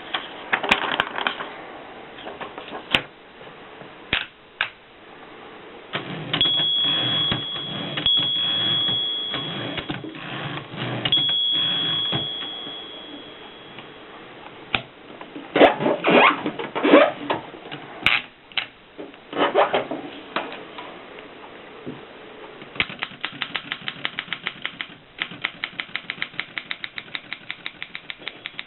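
Mercedes 6 manual typewriter being worked: scattered single clicks and key strikes, a stretch of steady mechanical noise with a thin high ring from about 6 to 14 seconds, bursts of rapid clattering strikes in the middle, then a fast, even run of clicks, several a second, near the end.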